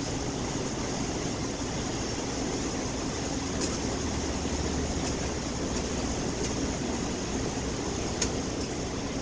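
Steady mechanical drone of an idling engine, with a few faint clicks.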